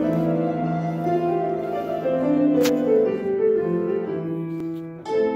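Piano playing an introduction in held chords; just before the end the chang, an Uzbek struck zither, comes in with quick beater-struck notes over the piano.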